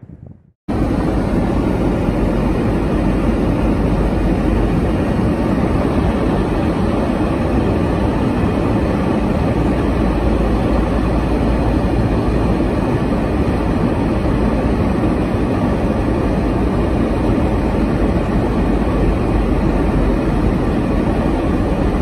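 Steady loud rumble of a car driving through a blizzard, heard from inside the car: wind and road noise together, starting abruptly just under a second in.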